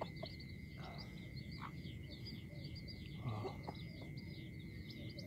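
Rapid high chirping calls of small animals, about four a second, over a steady high-pitched tone.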